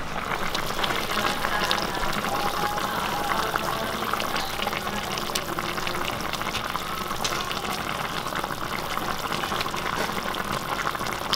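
Whole roast chicken jhol (curry broth) simmering in a pan: a steady bubbling with many small pops.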